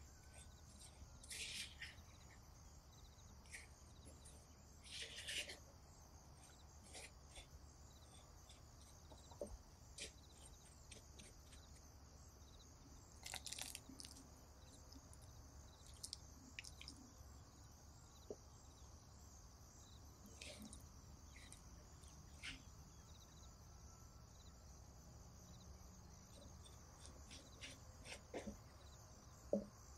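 Near silence, broken by faint, short scrapes of a silicone spatula stirring damp dry rice flour in a glass bowl, a few seconds apart.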